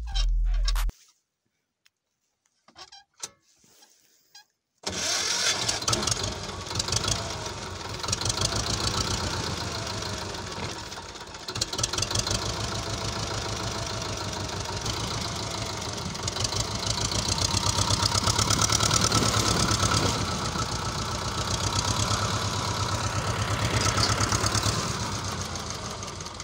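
T-25 tractor's two-cylinder air-cooled diesel engine cuts in suddenly about five seconds in and runs hard with a fast, even knocking beat, growing louder and softer by turns as it works.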